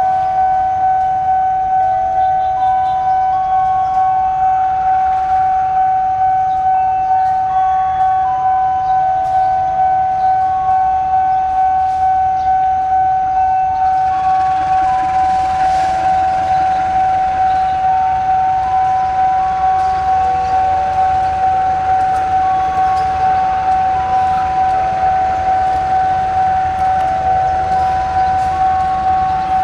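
Level crossing warning alarm sounding steadily, pulsing about twice a second, with a short run of tones stepping up and down in pitch. About halfway through, a CC203 diesel-electric locomotive's engine rises in a rumble as the train starts to pull out.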